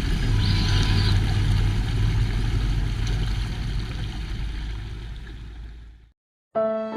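A steady, noisy rumble with a low hum fades out over the last two seconds and is cut off by a brief silence. Violin music begins near the end.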